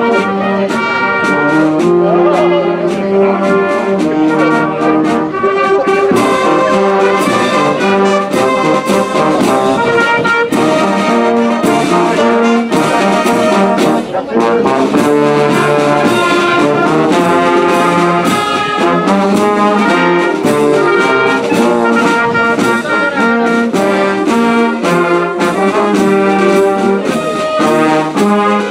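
Wind band of saxophones, clarinets, trumpets and tubas playing a tune in full, with held brass notes and a steady percussion beat.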